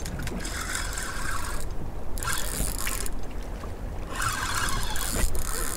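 Fishing reel being wound in three spells of about a second each while a hooked fish is played, over a steady rumble of wind and water.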